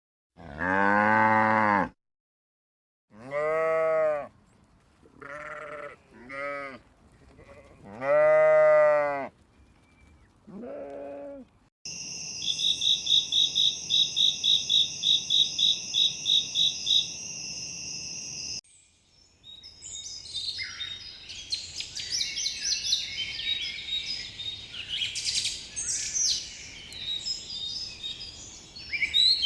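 Sheep bleating, about six loud calls over the first eleven seconds. Then a steady high pulsing trill for about six seconds, followed by a busy chorus of high bird chirps.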